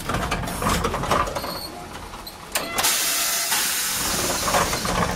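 Compressed air hissing from the pneumatic system of a Hiroshima Electric Railway 570-type tram, with clicks and rattles in the cab. A sudden loud burst of air release comes about two and a half seconds in and fades over the next second or so, as the standing tram gets ready to depart.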